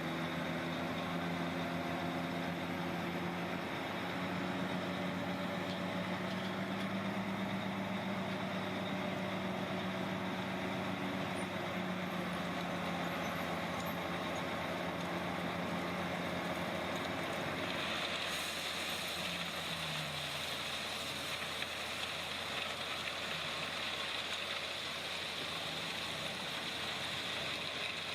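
Heavy construction machinery's diesel engine running steadily. About two-thirds of the way through, the engine note drops and a steady hiss comes up and continues.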